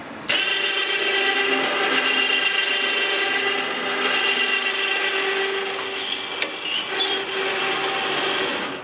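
Electric winch motor running steadily under the load of a 175-pound log, a whine with a rasping gear noise. It starts abruptly, runs for about eight seconds with a couple of clicks near the end, and stops abruptly.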